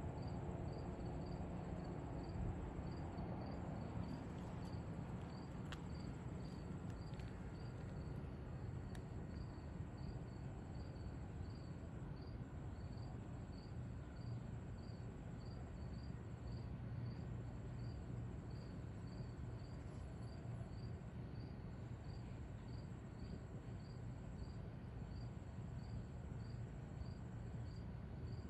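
Crickets chirping steadily, about two chirps a second, over a continuous higher insect trill that breaks off briefly every few seconds, with a low steady rumble underneath.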